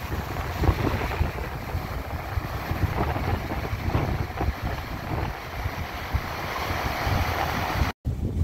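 Wind buffeting the microphone over the steady wash of surf running in among shoreline rocks. The sound cuts out for an instant near the end.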